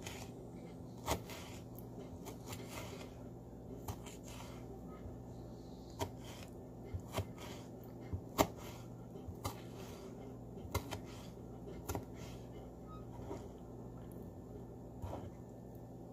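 Small kitchen knife dicing tomatoes on a wooden cutting board: irregular sharp taps of the blade striking the board, about a dozen in all, the loudest a little past the middle.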